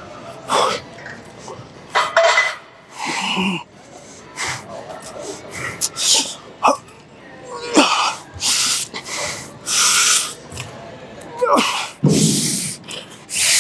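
A man's repeated sharp, forceful breaths through the mouth and nose, roughly one a second, as he strains through a set of alternating dumbbell curls.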